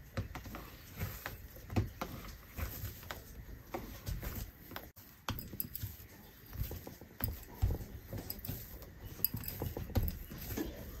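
Hands kneading soft pizza dough, pressing and working it: a run of soft, uneven thuds at an irregular pace.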